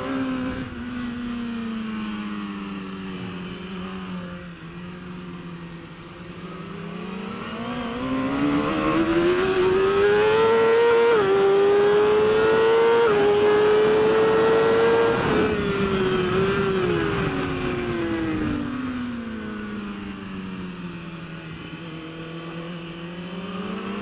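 BMW S1000RR's inline-four superbike engine at race pace. It revs up hard out of a corner with two quick upshifts near the top of the revs past the middle, then rolls off and winds down through the next corner before picking up again near the end.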